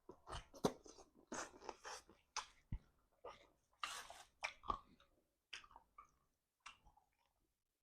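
Mouth chewing and crunching on stewed chicken feet: a quick run of short, irregular crunches and wet smacks that thins out to a few separate ones over the last couple of seconds.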